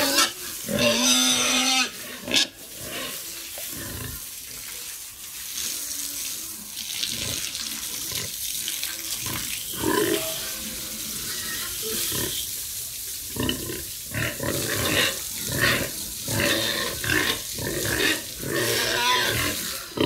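Water spraying from a hose onto a pig, a steady hiss, while the pig grunts again and again, most in the first couple of seconds and over the last few seconds.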